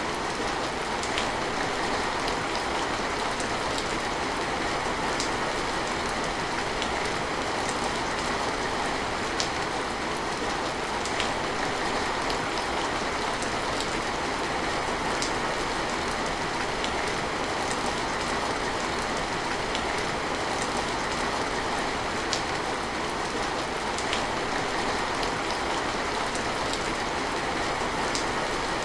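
Steady rain falling, an even hiss with occasional sharp ticks of single drops striking nearby.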